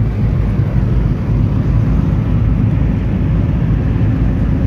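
Steady low rumble of road and wind noise heard from inside a car driving at speed.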